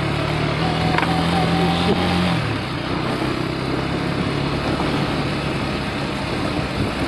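KTM Duke 250's single-cylinder engine running while riding, over a steady rush of wind noise. The engine note drops about two and a half seconds in.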